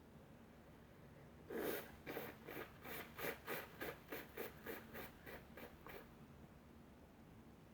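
Quick rubbing strokes, about a dozen at roughly three a second, the first one the loudest.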